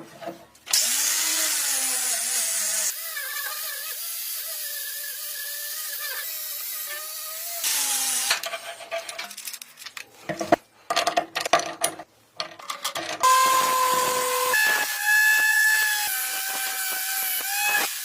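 Power tools at work on a rusted tool: a motor whining at a steady pitch that shifts in steps between clips, with rough grinding noise. Near the middle, a few seconds of separate clicks and knocks from hand work on the metal.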